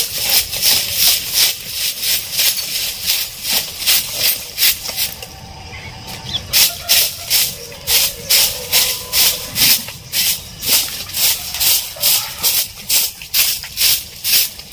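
A broom sweeping dry litter across the ground in quick, regular scratchy strokes, about two or three a second, with a pause of about a second and a half a little after the middle.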